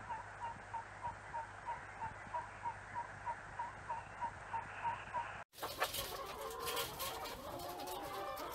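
A regular series of short, evenly spaced chirps, about three a second, over a soft hiss. About five seconds in, it cuts off abruptly and is replaced by hens and a rooster clucking busily.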